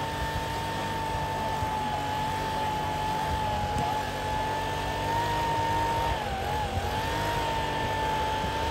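Handheld petrol leaf blower running at full throttle, blasting dust and rice chaff off a combine harvester's tracks as it is cleaned after cutting. A steady high whine that wavers briefly about two-thirds of the way through.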